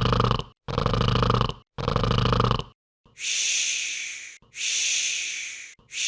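Om Nom's cartoon snore sound effect: three short rattling snores about a second apart, then long breathy exhales, each fading out.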